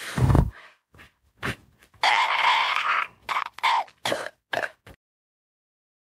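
A person burping loudly, then hiccuping, with a longer throaty burp-like sound about two seconds in and a few short hiccup-like gulps after it. The sound cuts off to dead silence about five seconds in.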